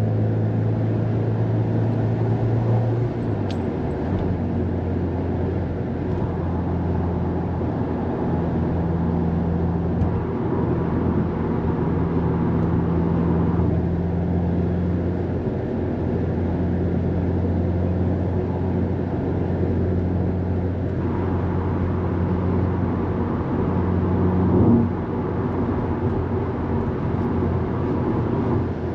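Subaru WRX STI's turbocharged flat-four engine heard from inside the cabin while driving, a steady low drone. Its pitch settles a little lower about three and a half seconds in, and there is a short swell in level near the end.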